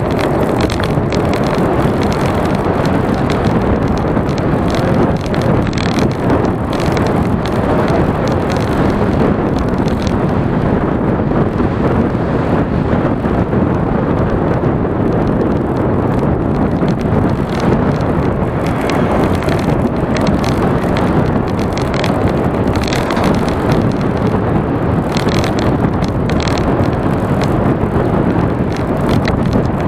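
Steady wind rush buffeting the microphone of a moving action camera, mixed with road noise, unbroken throughout.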